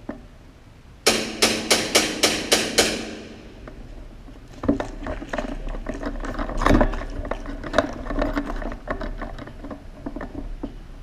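Airsoft gunfire: a quick string of seven sharp cracks, about four a second, each with a short ring, then after a pause a longer spell of scattered, irregular cracks and rattling.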